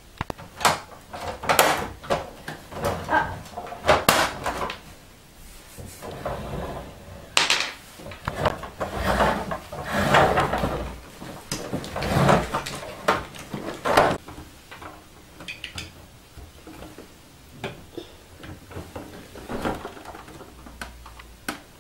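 Large plastic toy Volkswagen Beetle car being handled on a wooden floor, its hinged doors and roof panel opened and snapped shut: an irregular string of plastic clicks and clatters, busiest in the first two thirds and sparser near the end.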